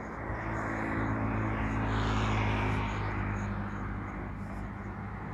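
Engine hum of a passing motor vehicle: a steady low drone that swells to its loudest about two and a half seconds in, then eases off.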